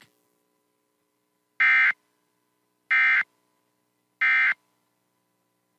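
Emergency Alert System end-of-message (EOM) data tones: three identical short bursts of high-pitched digital tones, evenly spaced a little over a second apart, signalling the end of the alert.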